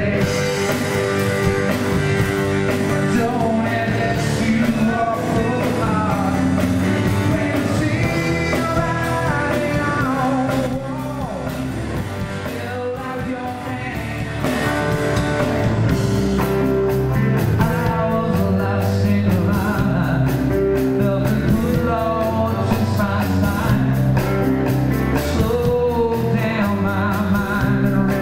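Live rock band playing: a male singer over electric guitar and bass guitar. The band drops quieter for a few seconds a little before the middle, then comes back up.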